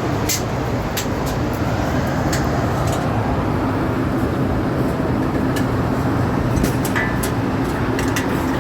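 Steady drone of rooftop air-conditioning equipment running, with a steady hum coming in about three seconds in. Scattered light clicks and taps run through it, several near the start and a cluster near the end.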